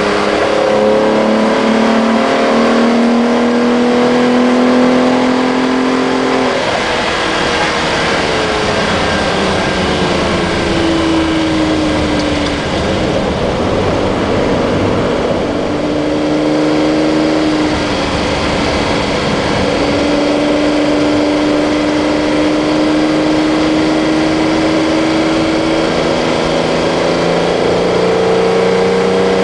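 Ferrari 400GT Automatic's 340 hp V12 engine heard from inside the cabin, accelerating with its pitch rising, then easing off with the pitch falling. Later it holds a nearly steady note and rises again near the end, over road and wind noise.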